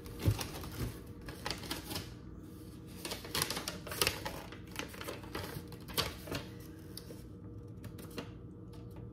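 Paper crinkling and crackling as a folded paper leaflet is taken out of a cardboard shipping box and unfolded: irregular crisp clicks and rustles, a few sharper ones standing out.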